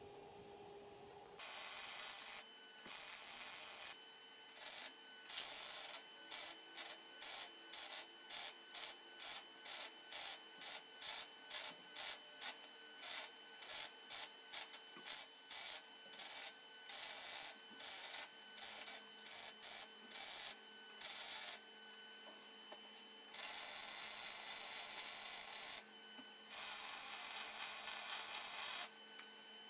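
Electric arc welding on metal, the arc crackling in quick stitch welds of well under a second each, about two a second for a long stretch. Near the end come two longer welds of two to three seconds each.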